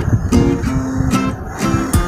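Background music led by a strummed guitar, with a steady rhythm of strums.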